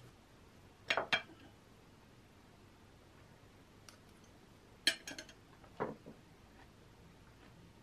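Light clinks and knocks of tableware, a fork and a glass plate on a cloth-covered desk: two close together about a second in, a quick cluster around five seconds, then a duller knock.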